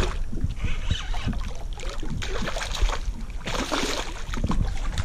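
A hooked sheepshead splashing and thrashing at the surface beside a kayak as it is reeled in, the splashing heaviest in the second half.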